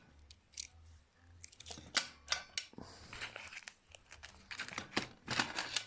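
Scattered light clicks, taps and rustling as small tools and parts are picked up and moved about on a workbench, over a faint steady low hum.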